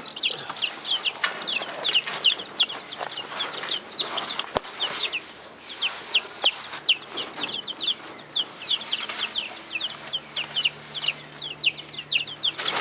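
A brood of baby chicks peeping all together: a dense, unbroken stream of short, high, falling chirps, several a second. A single sharp click sounds about halfway through.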